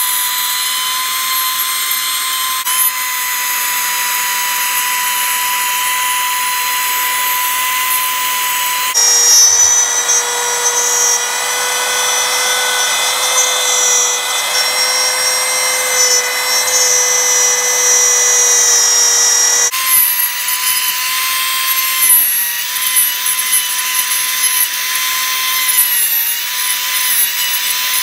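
Compact router running and cutting into pallet wood, a loud high-pitched motor whine over the hiss of the bit chewing the wood. About a third of the way in, the whine drops abruptly to a lower pitch for about ten seconds, then jumps back up and wavers slightly as the cut goes on.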